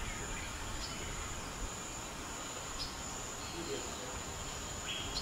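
Steady high-pitched insect drone, like crickets, over a low natural background, with a few brief high chirps about a second, three seconds and five seconds in.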